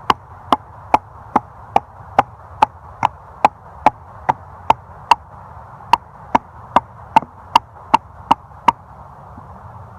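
Habilis Bush Tool, a large bushcraft knife, chopping into a piece of fir wood: a steady run of sharp blade strikes, a little more than two a second, about twenty in all, stopping near the end.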